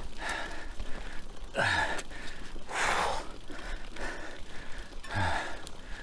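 A cyclist's heavy, gasping breathing: about four or five loud breaths, roughly one a second, from the effort of pedalling up a steep climb.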